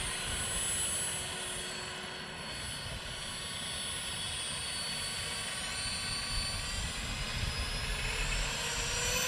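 Electric ducted fan on an Arrma Typhon RC car, a 3800 kV fan on its own 3-cell pack with its speed set by a knob, whining steadily in several high tones as the car drives slowly.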